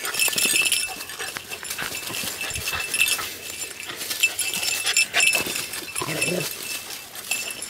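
Beagles scrambling and jumping in dry leaves as they grab at a dead rabbit held up above them, with scattered scuffs and a short dog vocal sound about six seconds in.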